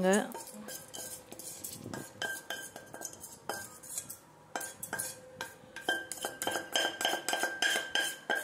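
Metal spoon scraping and tapping fried garlic, onion and spices out of a kadai into a stainless steel mixer-grinder jar: repeated irregular scrapes and clinks, some leaving a brief metallic ring.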